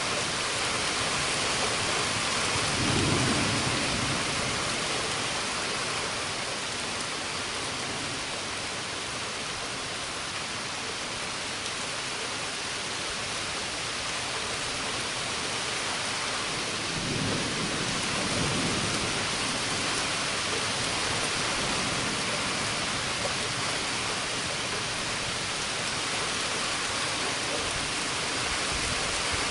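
Thunderstorm: steady heavy rain with two low rolls of thunder, one about three seconds in and another a little past the middle.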